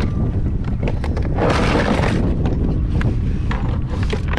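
A small fish flopping around under a kayak seat, knocking and slapping irregularly against the boat, with a louder rustling burst about a second and a half in. Wind rumbles on the microphone throughout.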